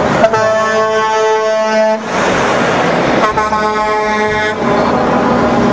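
Semi-truck air horn sounding two long blasts, each a steady chord of tones, over the steady noise of the truck driving past.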